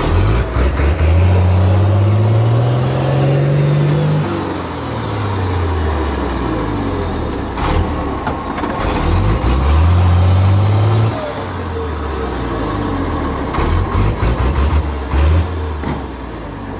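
Truck engine revving hard under load in mud. It climbs in pitch twice, over the first few seconds and again around ten seconds in, and drops back each time. A few short knocks and clatters come in the middle and later part.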